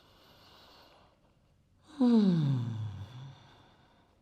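A woman breathes in softly, then lets out a long voiced sigh on the exhale about two seconds in, its pitch sliding steadily down.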